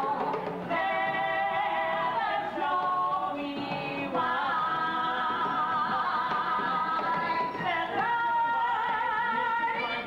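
Musical theatre singing from a live stage performance: long held notes with vibrato, the pitch shifting every second or two, heard from the audience seats.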